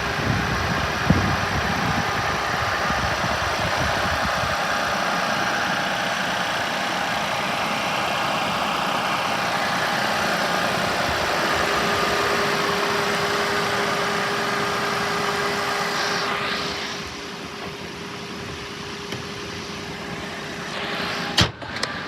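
Nissan Dayz Roox kei car running at idle under a steady, fan-like hiss, which drops noticeably in level about 16 seconds in. A click about a second in and a couple of sharp clicks near the end.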